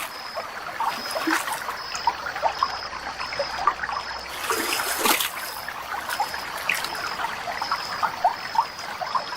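Stream water trickling and gurgling over a riverbed. A faint high chirp repeats about twice a second throughout, and there is a brief louder sound about five seconds in.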